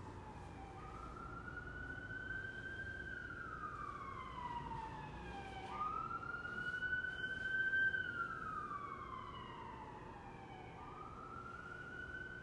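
Emergency-vehicle siren wailing, its pitch climbing quickly and then sinking slowly in cycles of about five seconds, loudest a little past the middle.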